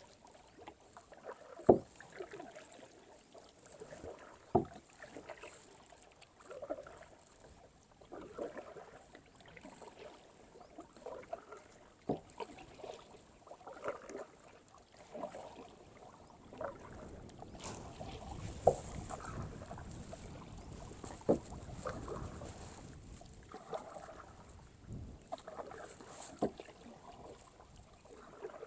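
Kayak paddle strokes dipping and swishing through the water every second or two, with a few sharp knocks. A low rumble runs for several seconds after the middle.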